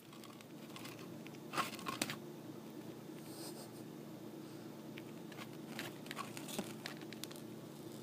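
A dwarf hamster nibbling a millet spray: irregular crisp crunching and cracking of the seeds, with the sharpest cracks about one and a half to two seconds in, over a faint low steady hum.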